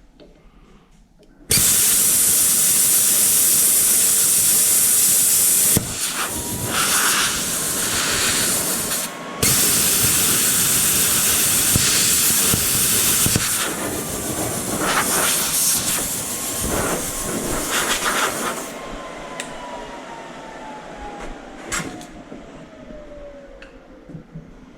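A power tool cutting metal: a loud hissing rush that starts about a second and a half in and runs in two long stretches, broken briefly near the middle, then a whine that falls slowly in pitch as the tool winds down.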